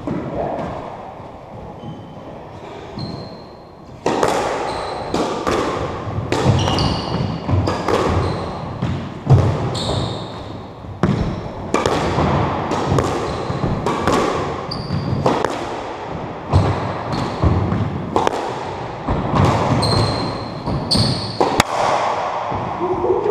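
Squash rally: the ball smacking off rackets and the front wall in quick sharp hits, with short high squeaks of court shoes on the wooden floor, echoing in the enclosed court. The rally starts about four seconds in, after a quieter stretch of footsteps and squeaks.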